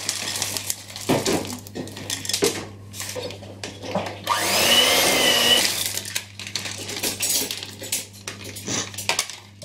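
Electric hand mixer run for about a second and a half through thick chocolate-chip cookie dough, its whine wavering up and down in pitch as the beaters work through the stiff mix. Before and after it, a plastic chocolate-chip packet rustles and chips click into the bowl.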